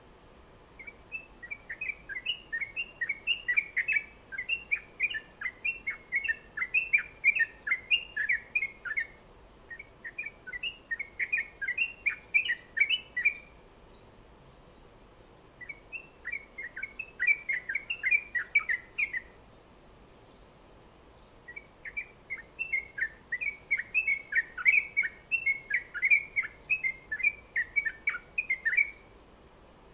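A caged songbird singing in bouts of quick, sharp, high chirps, several a second, five bursts of song broken by short pauses.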